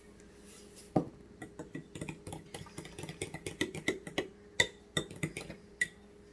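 Metal spoon knocking and clinking against a bowl while a marinade is mixed. A sharp knock comes about a second in, then irregular clinks, several a second, each with a brief ring.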